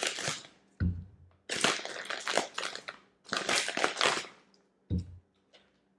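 Crinkly plastic snack packaging crackling as it is handled, in three stretches, with two soft thumps, one about a second in and one near the end.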